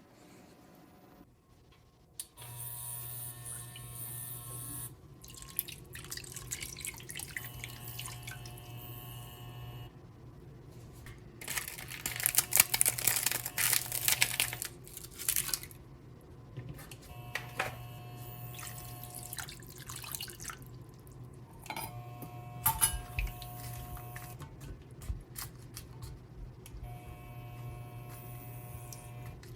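Home kitchen sounds while cooking: a low hum that comes and goes, water running from a tap for a few seconds in the middle, and scattered small clicks and knocks.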